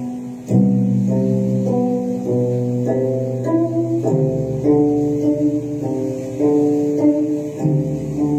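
Instrumental music: plucked notes and chords in a steady, slow melody, most likely guitar.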